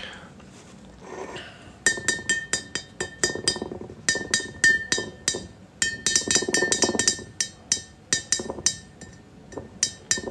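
Rapid, uneven clinking of a hard object that rings, starting about two seconds in and running in quick runs with short pauses, over a steady ringing tone.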